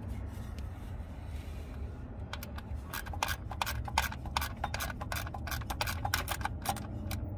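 An engine belt pulley on a Ford E-350 van being spun by hand, with a quick, irregular run of small clicks from about two seconds in, over a steady low rumble.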